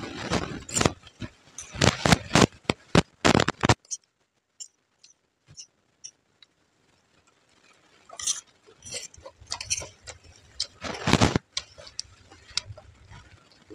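Close-up eating sounds: crisp crunching and clicking of puffed rice (muri) mixed with ghugni, with fingers and a spoon working on a steel plate. Dense crunching for the first few seconds, then a few seconds of near quiet, then more crunches and clinks from about eight seconds in.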